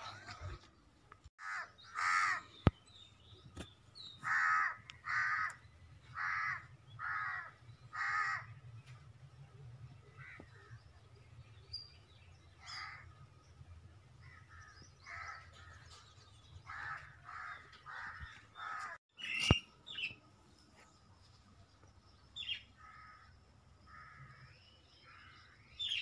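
A crow cawing again and again: one loud harsh caw about 2 s in, then a run of five caws roughly a second apart, followed by fainter, scattered caws. A couple of sharp clicks are heard along the way.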